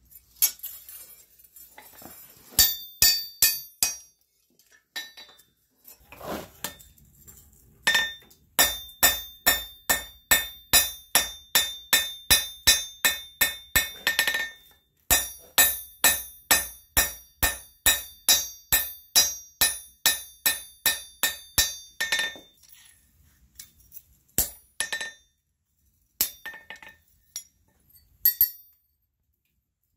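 Blacksmith's hammer striking red-hot iron on an anvil, each blow with a bright ringing clang. After a few scattered clinks, it comes in two long even runs of about three blows a second, then a few separate blows near the end.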